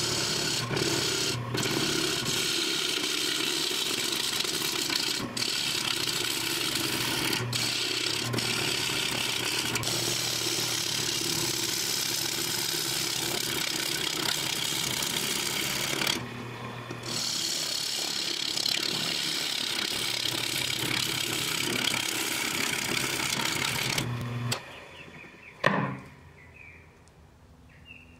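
Turning tool cutting into a spinning wooden bowl on a Jet lathe: a steady scraping, shaving hiss over the lathe's motor hum, with a short break in the cut about two-thirds of the way through. Near the end the cutting stops, leaving only the lathe running quietly, and there is one sharp knock.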